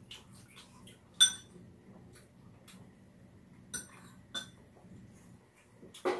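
Eating utensils clinking against dishes during a meal: three sharp, ringing clinks, the loudest about a second in and two more close together near four seconds, with faint small clicks in between.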